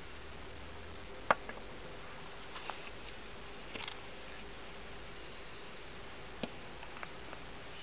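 Light handling sounds of small toys being moved about on a tabletop: a few sharp clicks and taps, the loudest about a second in, over a steady low hiss.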